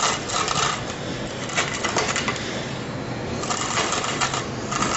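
Wooden rolling pin rolled and pressed back and forth over pieces of brittle crunch bar on a hard worktop, crushing them with a dense crackling, clicking and scraping of small shards.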